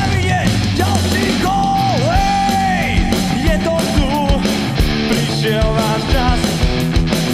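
Rock-style club anthem: a sung, partly shouted vocal over a full band with steady drum hits.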